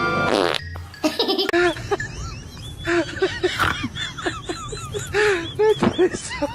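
Laughing in quick runs of short rising-and-falling bursts, after a burst of music cuts off about half a second in.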